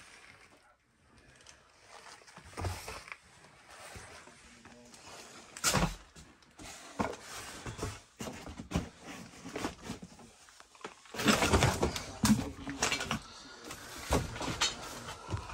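Footsteps picking across a floor strewn with trash: irregular crunches, rustles and knocks underfoot, with a heavier thump about six seconds in and a busier stretch of clatter near the end.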